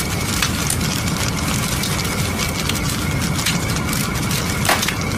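Fire sound effect: a steady low rumble with scattered crackles and clicks, one sharper crack near the end.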